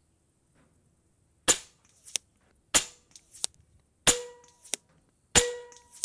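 FX Streamline .25 calibre precharged pneumatic air rifle firing four quick shots about 1.3 seconds apart, each a sharp crack followed by a fainter click.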